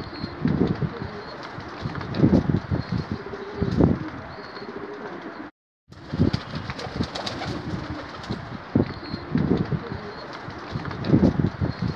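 Racing pigeon cooing: repeated groups of low, throaty coos. The sound cuts out completely for a moment a little before halfway through.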